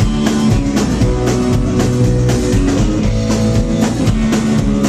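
Live rock band playing an instrumental passage between sung lines, electric guitar and drum kit with a steady beat.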